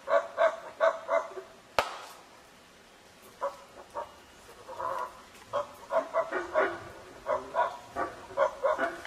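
Rhythmic grunting barks of the howler-monkey kind: a quick run of about five barks at the start, a sharp click about two seconds in, then a longer, uneven run of barks from about three seconds in.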